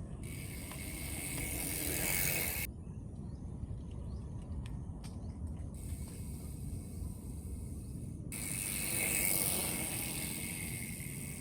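Bicycle rear freehub buzzing while the wheel coasts, in two stretches: for about two and a half seconds at the start, then again from about six seconds in. Steady low wind and road rumble runs underneath.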